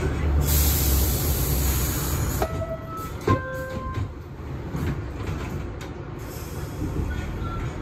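Interior of an R62A subway car on the 6 line: steady low rumble with a high hiss over the first two seconds, then two short pitched tones, the second lower, about two and a half and three and a half seconds in. The noise eases off after that.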